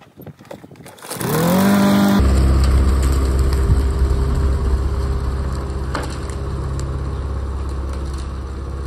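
Walk-behind gasoline lawn mower being pull-started. About a second in, the engine is spun up by the cord with a rising pitch, and it catches a second later. It then runs steadily, growing a little quieter as it moves off.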